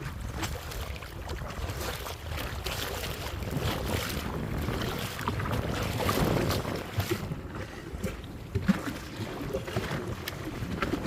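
Water splashing and sloshing with scattered small knocks, over a low wind rumble on the microphone.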